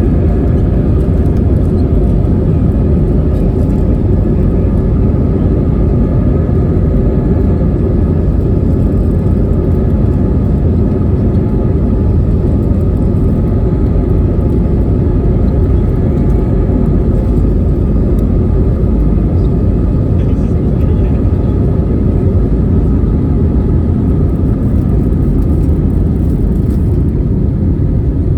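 Steady, loud engine and airflow noise inside the cabin of an Airbus A320neo with Pratt & Whitney geared turbofan engines, a deep even rumble with faint steady tones above it and no change in pitch.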